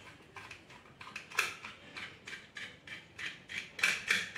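A run of small clicks and snaps as the junction box inside a water purifier is prised open by hand, irregular, a few a second, louder near the end.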